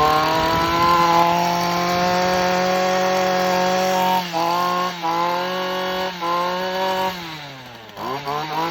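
Shindaiwa M243 multi-tool power head's 23.9cc two-stroke engine revving. It climbs to high revs and holds there for about four seconds, is blipped down and back up three times, then drops back toward idle and is revved again near the end.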